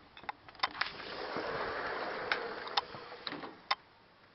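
Clicks and knocks of a door being handled and opened, with a soft hiss lasting a couple of seconds in the middle.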